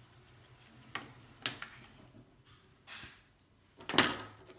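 Hands handling cardboard packaging and small parts on a wooden table: a few light clicks and taps, then a sharper knock about four seconds in.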